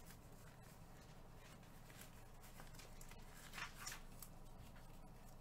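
Near silence: low room hum, with a couple of faint brief rustles or clicks about three and a half seconds in.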